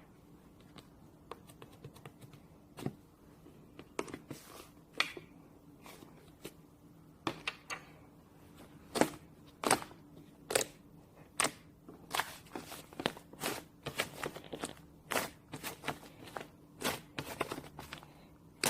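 Irregular light taps, clicks and crinkles from small objects being handled close by, coming faster and louder from about seven seconds in, over a faint steady hum.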